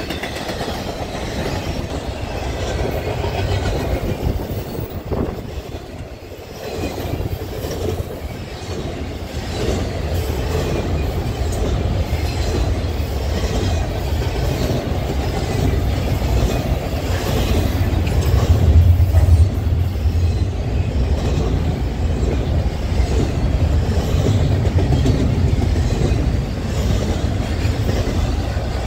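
Freight train cars rolling past on the BNSF main line: a steady rumble with repeated clicking of wheels over the rails, growing louder in the second half.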